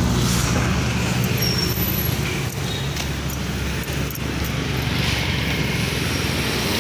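Steady low hum of a vehicle engine running, mixed with street traffic noise.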